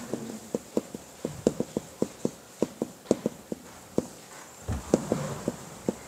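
Whiteboard marker tapping and knocking against the board while characters are written: short, uneven taps about three a second, with a duller knock near the end.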